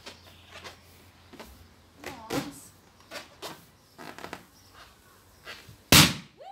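Large latex balloon squeezed in a hug, giving short squeaks and rubbing noises against clothing, then bursting with one loud bang about six seconds in.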